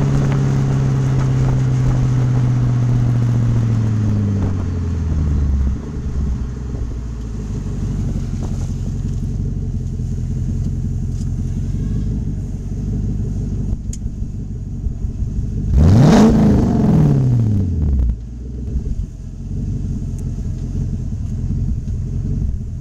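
Porsche 928 S4's 5.0-litre V8 through a stainless steel sports exhaust, its revs falling slowly for several seconds and settling into a low idle. About two-thirds of the way through there is one quick throttle blip that rises and drops back to idle.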